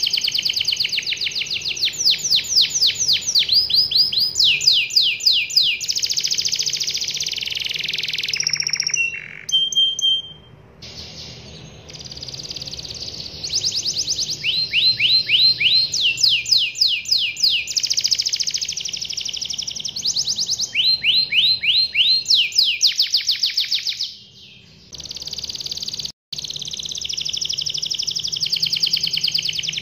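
Domestic canary singing a long song of rapid rolling trills, fast repeated high notes in runs that change pitch every second or two. The song breaks off briefly about ten seconds in and again near twenty-four seconds, then resumes.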